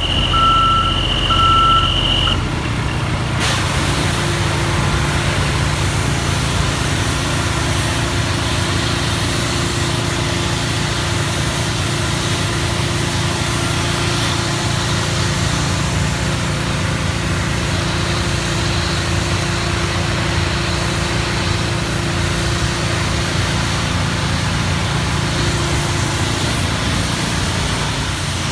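A vehicle's reversing alarm beeps for about the first two seconds. It gives way to a loud, steady engine drone with a continuous hiss that runs on unchanged.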